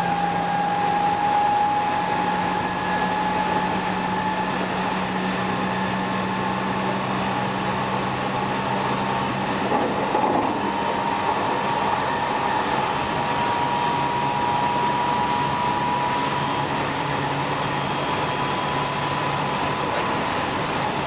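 Running sound inside a JR 207 series electric multiple unit motor car with a Toshiba GTO inverter: a steady whine from the traction drive rises slowly in pitch as the train picks up speed, over the rumble of the wheels on the rails, with a brief rougher patch about ten seconds in.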